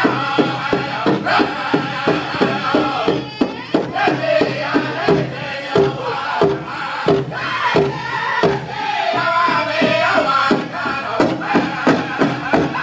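Powwow drum group singing a song together over a steady, even beat on the big drum, about three strokes a second.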